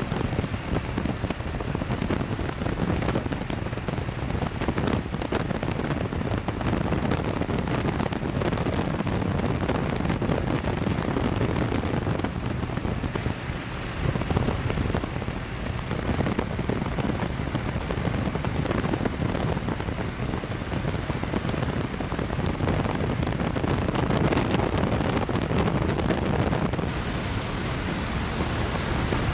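Heavy hurricane rain and wind making a loud, steady wash of noise, changing in character about halfway through and again near the end.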